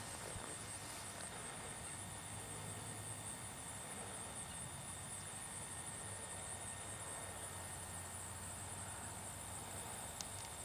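Faint, steady, high-pitched chirring of insects, with a couple of small clicks near the end.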